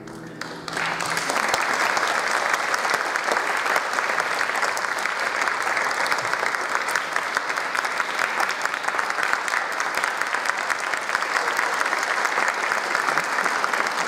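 The guitar ensemble's last chord dies away, and under a second in an audience breaks into steady applause.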